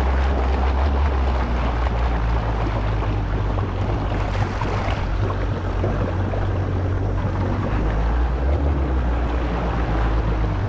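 Kawasaki SX-R 1500 stand-up jet ski's four-cylinder engine running steadily at low throttle, a constant low hum with water and wind noise over it.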